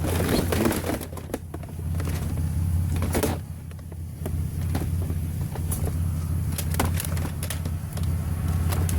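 Steady low engine rumble, with scattered knocks, clicks and rustling from junk being handled.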